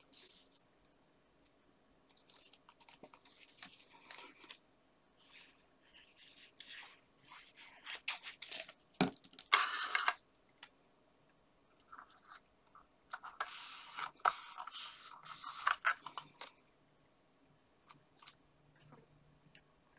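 Card and patterned paper being handled on a cutting mat: intermittent rustling, sliding and light taps as card panels are picked up, lined up and pressed together, busiest about halfway through and again a few seconds later.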